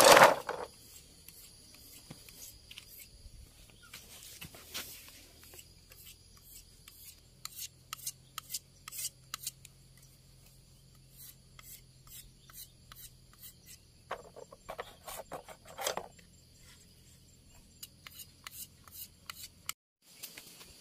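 A knife shaving and whittling thin split-bamboo strips: repeated short scraping strokes and sharp clicks, coming in clusters. A loud knock right at the start.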